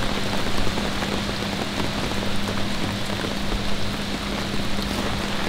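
Heavy rain falling steadily in a downpour, with a steady low hum underneath.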